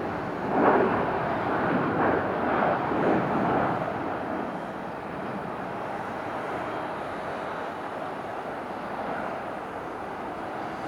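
Jet airliner engines, from a Boeing 737-800, as a continuous rushing noise. It swells in uneven surges over the first few seconds, then settles to a steady level.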